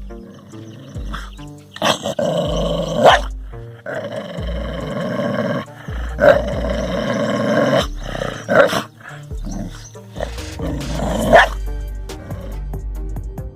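An animal growling in five or six loud bursts, as at its own reflection in a mirror, over background music.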